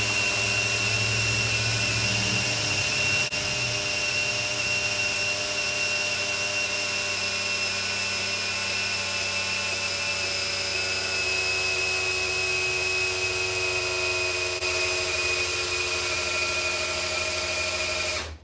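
Cordless drill running flat out at high speed, turning a new engine's oil pump through a priming tool to build oil pressure. It makes a steady high whine that sags slightly in pitch, then cuts off suddenly near the end as the drill's battery runs flat.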